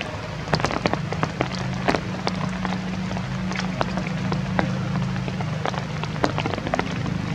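Irregular drips of water ticking onto leaves and stone, with a steady low hum underneath.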